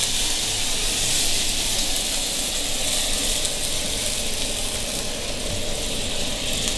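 Beef tenderloin steaks sizzling steadily in melted butter and whisky in a frying pan as the whisky is flambéed and burns off.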